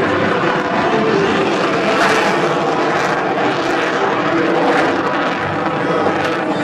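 Aircraft flying overhead, its engines making a loud, steady noise with no let-up.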